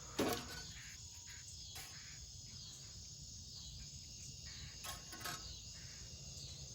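Crickets chirping steadily and faintly over a low steady background hum, with a few brief knocks, the loudest just after the start.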